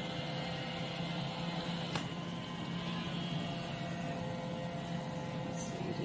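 iRobot Roomba i7 robot vacuum running on carpet: a steady, quiet hum of its motors and brushes, with a single faint click about two seconds in.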